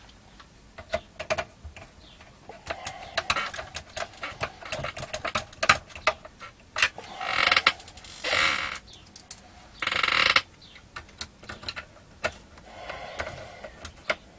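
Screwdriver work on a plastic monitor chassis: a run of small sharp clicks as screws are turned, with two longer, louder scraping noises, about seven and ten seconds in.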